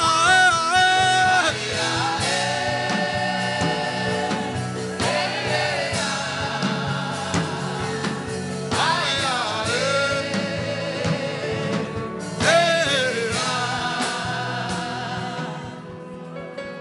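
Gospel worship singing with a sung melody over steady instrumental backing, fading out near the end.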